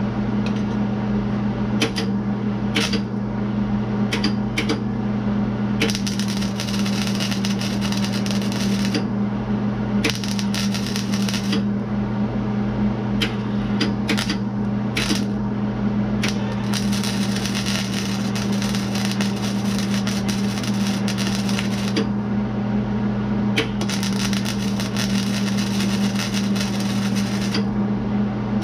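MIG welder tack-welding a sheet-metal cab corner panel: the arc crackles and sizzles in stop-start spells, a few quick tacks at first, then longer runs of a few seconds each, spaced out to keep the panel from overheating and warping. Under it a steady electrical hum.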